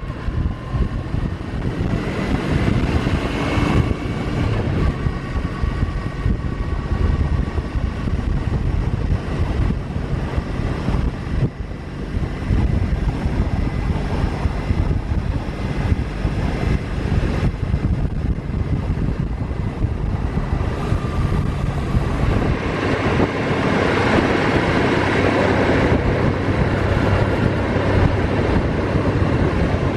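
Kawasaki W800's air-cooled parallel-twin engine running while the motorcycle is ridden, with wind noise on the microphone. The engine gets somewhat louder about two-thirds of the way through.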